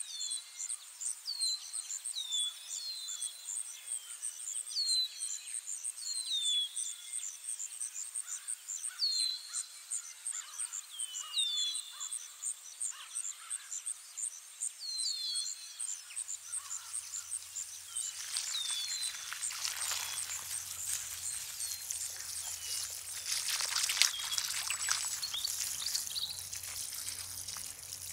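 Forest birds singing: a fast, very high run of repeated notes with short falling chirps every second or two. From about 18 seconds in, the splashing rush of trickling, running water takes over, with a faint low hum beneath.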